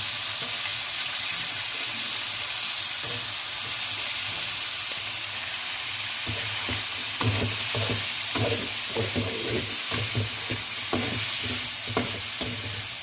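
Chicken, carrots and baby corn sizzling in a hot pan with chicken stock, a steady hiss. From about halfway through, a spatula stirs and scrapes against the pan in quick, irregular knocks.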